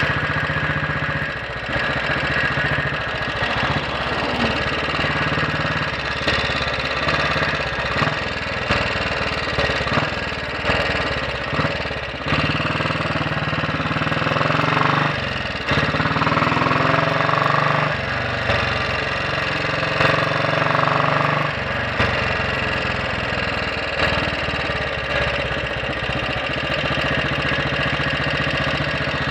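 Royal Enfield Bullet 500 single-cylinder four-stroke engine running under way, a pulsing thump with its inlet cam retarded one tooth. The engine note rises and falls with throttle changes between about 12 and 22 seconds in.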